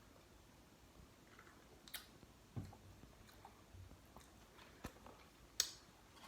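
Person chewing food: faint chewing with a few short, sharp mouth clicks and smacks.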